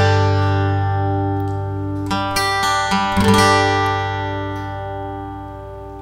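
Strinberg SD201HC TOS acoustic guitar being strummed: a chord rings, a few more strums come about two and three seconds in, and the last chord is left to ring and slowly fade.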